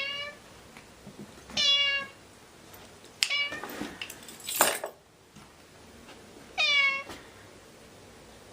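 A cat meowing three times, each a short meow falling in pitch: one at the start, one nearly two seconds in, and one about seven seconds in. Between the second and third meows come a sharp click and a brief noisy burst, the loudest moment, around the middle.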